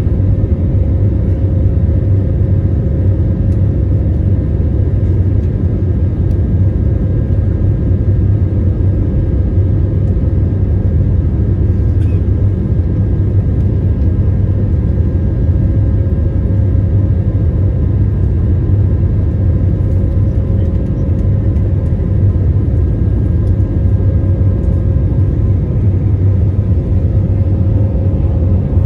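Airbus A320-family airliner's jet engines and airflow heard from inside the cabin during the climb: a steady, loud low rumble with a few faint steady whining tones above it.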